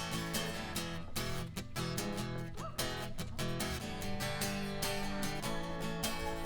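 Background music: a strummed acoustic guitar track with a steady rhythm.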